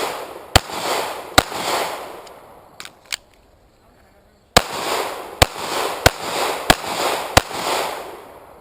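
Pistol shots from an H&K VP9 9mm handgun fired in two strings: three shots in the first second and a half, a pause of about three seconds, then five more in quick succession. Each crack is followed by a short echo.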